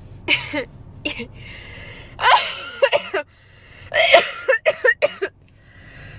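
A woman's coughing and gasping fit: several clusters of sharp voiced coughs with breathy gasping inhales between them, the longest clusters about two and four seconds in.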